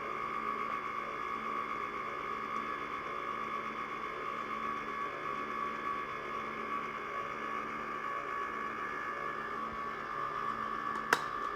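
Breville Smart Scoop ice cream compressor running steadily mid-churn, a constant mechanical hum of its compressor and paddle motor, with one sharp click near the end.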